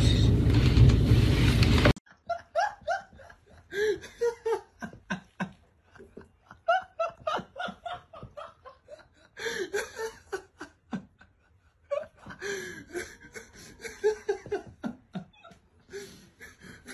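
A loud rushing noise for about the first two seconds cuts off abruptly. Then a person laughs on and off in repeated bursts of giggling and fuller laughter.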